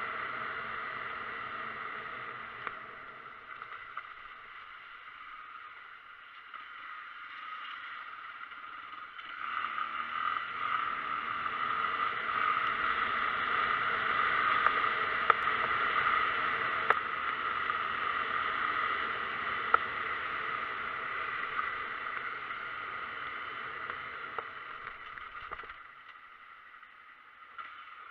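Steady hiss of tyres rolling on a wet road, with water spray under a moving vehicle. It swells in the middle and fades near the end, with a few light knocks.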